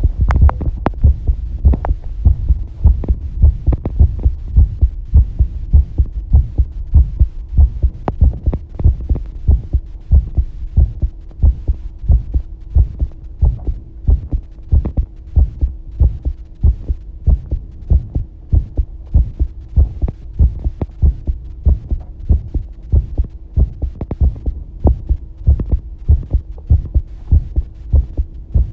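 Human heartbeat recorded during a bath: a fast, regular run of low thumps. A faint steady hum sits underneath.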